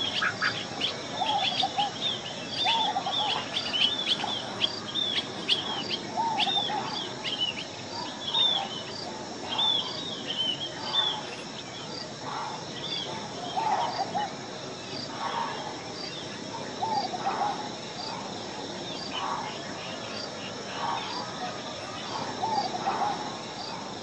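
Wild birds calling: many short, downward-slurred chirps, thickest in the first ten seconds and thinning after, over lower hooked calls that keep coming throughout. A faint high tick repeats a little slower than once a second.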